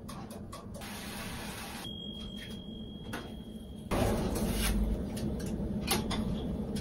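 A tray being loaded into a countertop toaster oven: light clicks and knocks of metal and the oven door. A steady high electronic beep lasts about two seconds midway, and the handling noise grows fuller and louder just after it.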